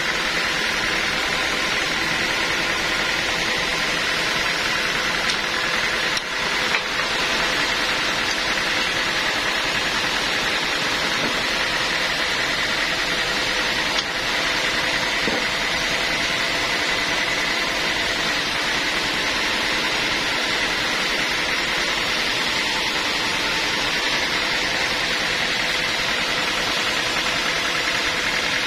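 Sawmill machinery running steadily: a constant engine-driven drone with a hiss over it. Two brief knocks come about six and fourteen seconds in.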